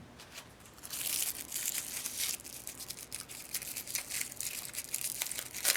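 Packaging being handled and torn open: a run of crinkling and tearing with small clicks and crackles that starts about a second in.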